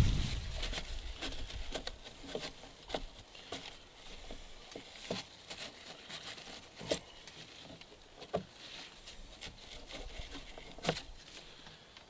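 Irregular light clicks and taps of hands handling parts inside an RC boat's hull, with a few sharper clicks in the second half. A low rumble dies away at the very start.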